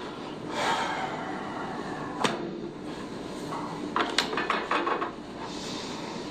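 Sharp cracking knocks during a chiropractic spinal adjustment: one crack about two seconds in, then a quick cluster of several about four seconds in.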